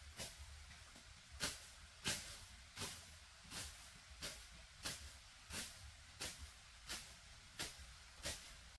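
A long curved brush-clearing blade swung again and again through weeds and grass: a short swishing cut about every two-thirds of a second, in an even rhythm.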